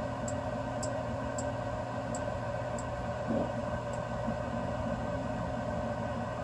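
BIBO Touch X 3D printer running a dual-extruder print: a steady whir of its cooling fans and motors. Faint high ticks repeat about every half second through the first four seconds.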